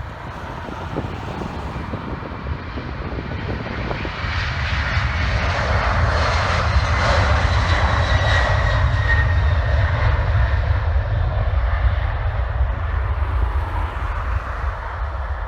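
Boeing 767 jetliner's twin jet engines at takeoff power as it passes. There is a loud rumble that swells to its loudest around the middle, with a faint high whine in it, then fades.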